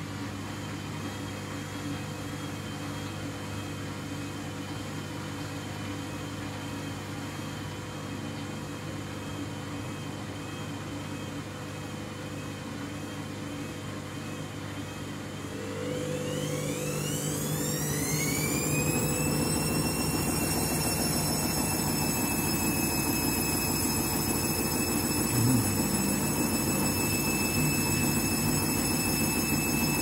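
Candy washing machine on its final spin: the drum turns with a steady motor hum and a faint wavering whine. About halfway through, the motor whine rises steeply in pitch over a few seconds and the machine gets louder as the drum speeds up to full spin speed, then holds a steady high whine.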